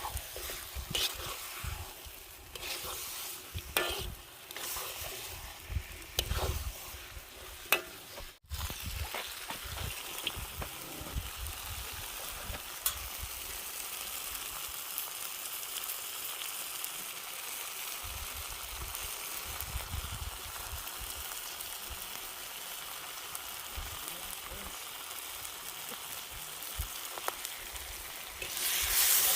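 Food frying and sizzling in a cooking pot, with a utensil stirring, scraping and knocking against the pot through the first eight seconds. After a brief break, a steady sizzle runs on and turns louder just before the end.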